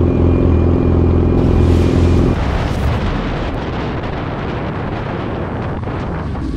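Sport motorcycle engine idling steadily. About two seconds in it cuts to a motorcycle being ridden along a road, where a steady rush of wind noise on the helmet-camera microphone covers the engine.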